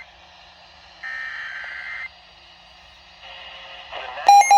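Emergency Alert System SAME header: a burst of shrill digital data tones lasting about a second, starting about a second in. Just before the end a loud, rapidly beeping alert tone begins.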